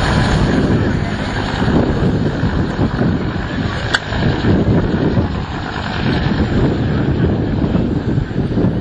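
Bell UH-1 Iroquois (Huey) helicopter with its two-bladed main rotor and turbine running loud and steady, with a single sharp click about four seconds in.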